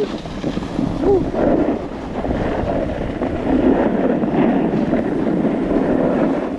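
Wind rushing over the microphone with the steady scrape of sliding down a snowy ski slope. A short rising-and-falling whoop of a voice about a second in.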